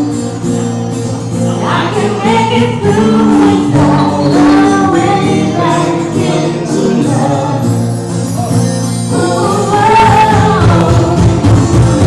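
Live pop duet: a woman and a man singing into microphones over acoustic guitar accompaniment.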